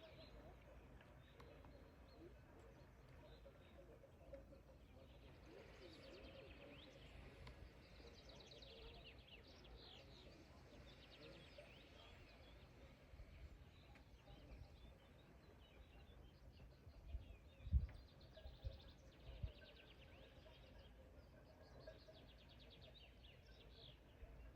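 Faint birdsong: small birds chirping and trilling in rapid runs over a quiet outdoor background. A few short low thumps come about two-thirds of the way through.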